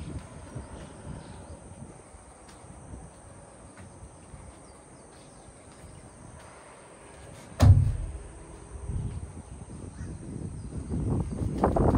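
Quiet open-air ambience with a few faint ticks, broken by a single heavy thump about two-thirds of the way through. Wind buffeting the microphone then builds near the end.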